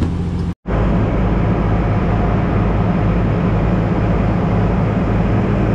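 Fishing boat's engine running steadily: a loud, low drone heard from the deck. It cuts out for a split second about half a second in.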